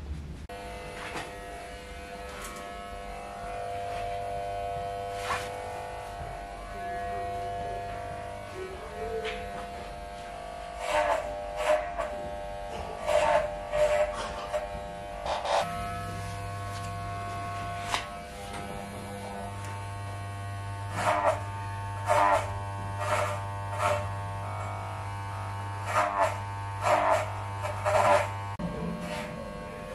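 Electric hair clippers buzzing steadily while a wig is trimmed, with repeated short, louder bursts.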